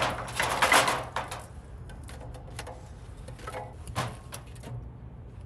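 Wooden kindling sticks, paper cups and cardboard being packed into a steel wood stove's firebox: a busy rustling and clattering in the first second or so, then scattered sharp knocks of wood against the steel.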